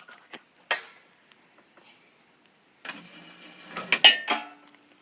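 Handling noise from hard objects: a single sharp, short sound under a second in, then about a second and a half of clattering and rattling.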